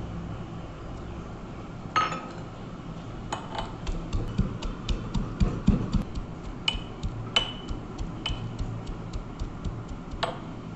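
A metal pestle is pounding garlic cloves in a metal mortar. There is a single clink about two seconds in, then a quick run of strikes, about three a second, many with a short metallic ring, stopping just before the end.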